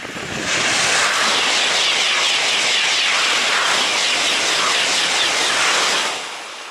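TGV high-speed train passing close at speed: a loud rush of wheel, rail and air noise that sets in about half a second in, holds steady for some five seconds, then falls away quickly near the end.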